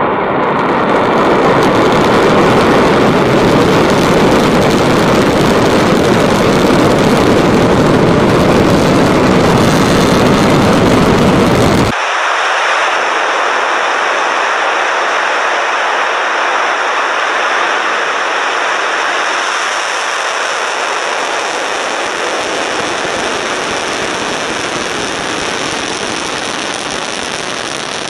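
Rocket engines at liftoff: a loud, steady rushing noise with a deep rumble. About twelve seconds in it cuts abruptly to a second launch recording that sounds thinner, without the deep rumble, and slowly grows softer.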